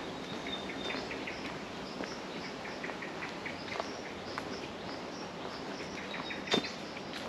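Forest birds calling in many short, repeated chirps, with a thin high whistle twice, over a steady background hiss. A few footsteps on the track cut in, the loudest about six and a half seconds in.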